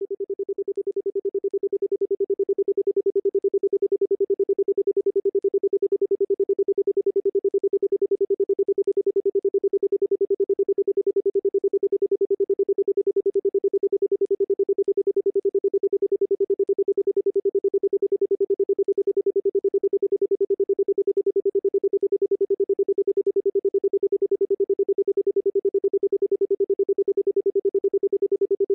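A single steady pure electronic tone, a sound-therapy 'pure frequency', swelling up over the first few seconds and then holding level.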